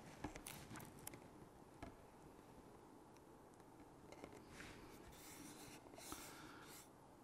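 Faint handling of masking tape on a painted model rocket fin: a few light clicks as the strip is positioned, then soft rubbing as fingers press and smooth it down in the second half.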